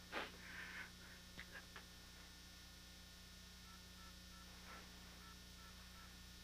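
Near silence: a quiet room tone with a soft, brief sound just after the start and a few faint short clicks between one and two seconds in.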